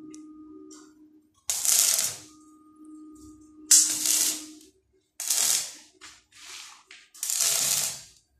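Stick (arc) welding on a steel door frame: the electrode is struck five times for short welds, each giving a crackling sizzle lasting up to about a second. A steady low hum fills the gaps between the first few welds.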